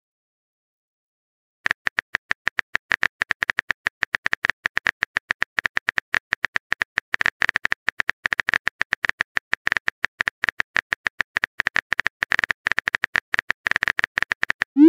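Phone keyboard typing clicks from a texting-story app. After about a second and a half of silence, a fast, even run of short taps begins, several a second, as a long message is typed out, and a short rising whoosh sounds at the very end as the message sends.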